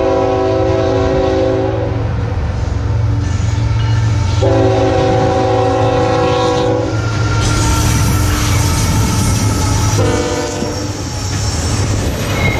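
Norfolk Southern GE ET44AC locomotive's multi-chime air horn sounding two long blasts and then a short one, the long-long-short of the grade-crossing signal, over the steady rumble of its diesel engine. As the locomotive passes, the clatter and rush of steel wheels on the rails of the following autorack cars takes over.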